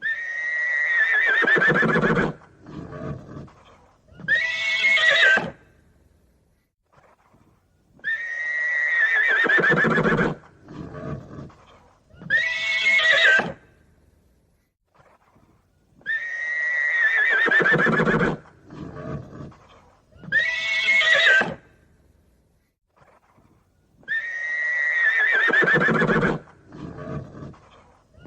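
Horse neighing, the same sequence heard four times about every eight seconds: a long whinny, a few quieter short sounds, then a shorter whinny.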